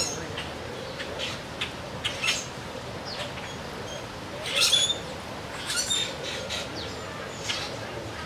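Birds chirping: short high calls every second or so, a denser cluster about four and a half seconds in, over steady background noise.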